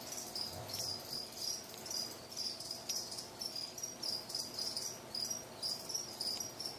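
Pause between a sleeping pet's snores: only a faint, high chirping, evenly repeated a few times a second.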